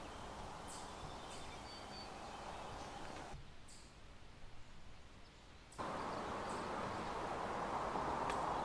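Steady outdoor background hiss with no clear single source. It drops abruptly about three and a half seconds in and jumps back louder just before six seconds, as the ambience changes from one shot to the next.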